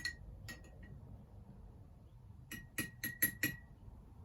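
A spoon clinking against a glass while stirring honey into hot lemon water. There are three light taps in the first second, then a quick run of five about two and a half seconds in, each with a short bright ring.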